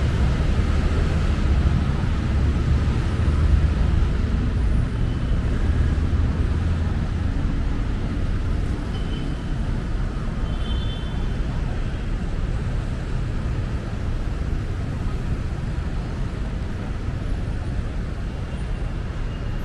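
Steady road-traffic noise from vehicles on a busy city avenue: a continuous low rumble that is heaviest for the first several seconds and then eases slightly.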